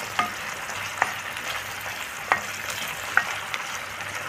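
Small fava beans and chopped onion sizzling in oil in a nonstick pan, stirred with a wooden spoon: a steady frying hiss with a few sharp clicks of the spoon against the pan.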